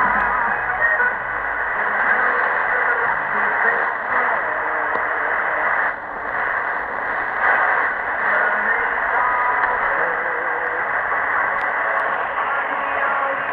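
Shortwave AM reception of the pirate station Blue Star Radio on 6965 kHz: music comes through heavy noise and static, with the narrow, muffled sound of a shortwave signal.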